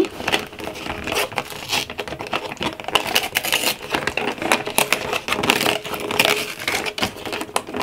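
Fingers and nails scraping, tapping and pressing on a cardboard advent calendar, working a perforated door loose and tearing it open: a dense run of small clicks and scratchy rustles.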